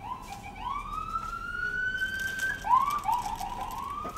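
A siren wailing: a long rising tone held high for about two seconds, then a run of quick rising swoops, then another long rise near the end.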